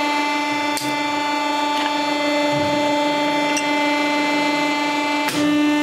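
Friction welding machine running with a steady, constant-pitched hum. A faint click about a second in and a sharp click near the end, after which the hum gets slightly louder.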